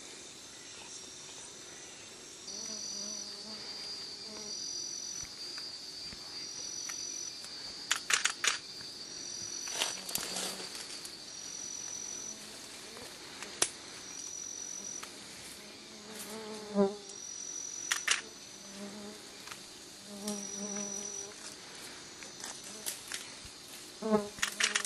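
Rainforest insects keep up a steady high chorus, with short high trills repeating about every second and a half. The chorus is broken several times by sharp snaps and cracks, the loudest sounds here.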